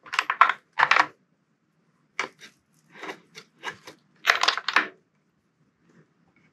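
Castle 800KV motor's three wires being plugged into the Mamba XLX2 speed controller: short clusters of clicks and rattles from the connectors and wires being handled, spread over the first five seconds.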